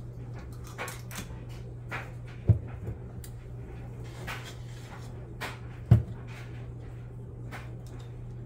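Metal cookie scoop working dough out of a stainless steel bowl onto a baking sheet: light scrapes and clicks, with two sharp knocks, the first about two and a half seconds in and the second about three and a half seconds later. A steady low hum runs underneath.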